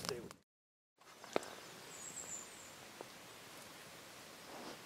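Faint outdoor morning ambience: an even low hiss, with a sharp click just after a brief cut to silence, a short high chirp, and a soft tick.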